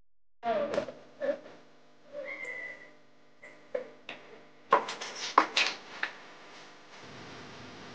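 A puppy whimpering in short high squeaks, then holding one thin whine about two seconds in. Several sharp clanks follow from a stainless steel bowl the puppy is standing in.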